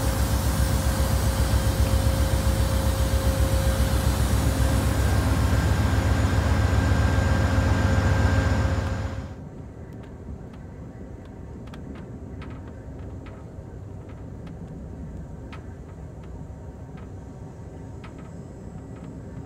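Loud steady rumble of an Amtrak train standing at a station platform. About nine seconds in it cuts to the quieter steady rumble of the moving train heard from inside a passenger car, with faint scattered clicks.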